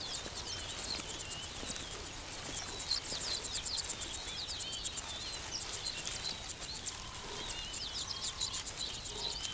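Bush ambience: several wild birds chirping and calling with quick rising and falling notes, over a fast, even high ticking.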